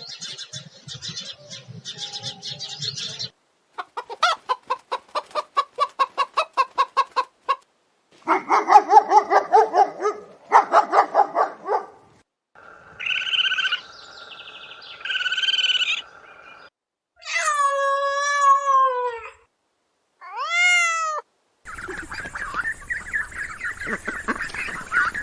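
A run of different farm animal calls played one after another, each lasting one to a few seconds with short breaks between. Rapid pulsed calls come first, then drawn-out calls that slide in pitch.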